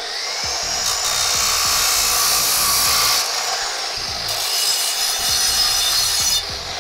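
DeWalt 14-inch metal chop saw with a steel-cutting blade spinning up with a rising whine and grinding through an iron baluster, a loud, harsh, steady screech. It drops off sharply near the end.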